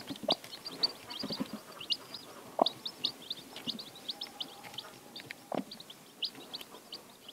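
Day-old Icelandic chicks peeping beside their broody hen: a steady stream of short, high, mostly falling peeps, several a second, with a few short lower sounds beneath them.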